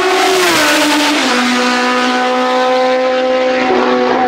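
WTCC touring car's turbocharged four-cylinder engine passing close at speed, its note dropping in pitch about a second in as it goes by, then holding a steady high note as it pulls away.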